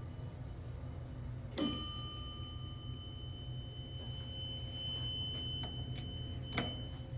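Elevator arrival bell struck once, a single high ding that rings on and slowly fades over several seconds, over a low steady hum. Two short clicks near the end.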